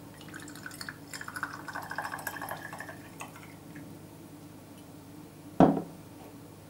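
Grape chacha poured from a glass bottle into a small stemmed glass, a gurgling pour lasting about three seconds. Near the end the bottle is set down on the countertop with one sharp knock.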